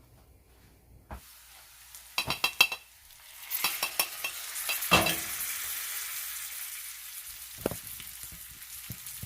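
A knock and a quick run of metal clinks, then onions and turmeric sizzling steadily in olive oil in a saucepan as they are stirred, with a louder knock of the spoon against the pan.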